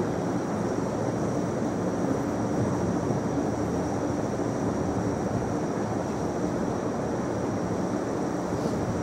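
Steady hissing background noise with a thin, faint high-pitched whine over it; no voice.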